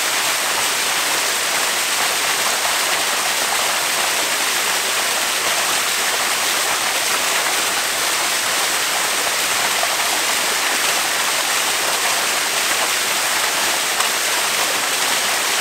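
A small waterfall spilling down stepped rock ledges into a pool: a steady rush of running water.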